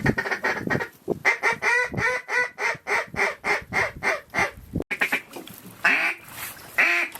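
Duck quacking: a quick run of about a dozen quacks, roughly four a second, then a few separate, louder calls near the end.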